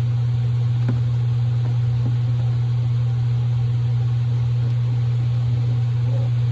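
A steady low hum throughout, with a few faint clicks and knocks, about a second and two seconds in, as a fuel line is handled and fitted to the mower's fuel tank.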